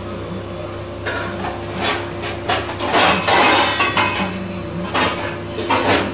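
Khichdi boiling hard in a steel pot, bubbling and spluttering in irregular bursts, loudest about halfway through, over a steady low hum.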